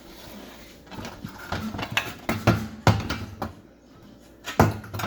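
Stove's metal top being set back down onto the range: a run of clanks and knocks, with one more loud knock near the end.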